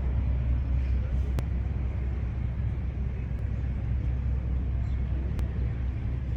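Ferry engine running with a steady low drone, with people talking faintly in the background.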